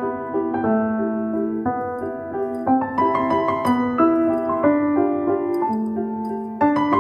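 Background piano music: a melody of evenly paced notes over changing chords.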